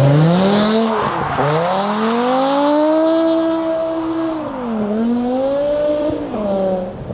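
A performance car's engine revving hard while drifting, its pitch climbing, dipping and climbing again several times, with tyre squeal in the first second or so.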